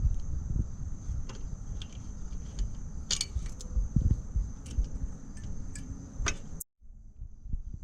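Metal hand tools and engine parts clinking and clicking during engine work, with irregular sharp metallic taps over a low rumble and a faint steady high whine. The sound cuts out briefly near the end.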